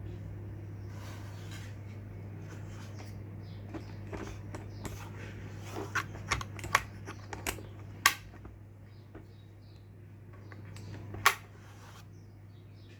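Keys being pressed one at a time on a Havit KB498L mechanical keyboard with clicky blue switches: irregular sharp clicks, a few louder clacks near the middle and one near the end, over a steady low hum.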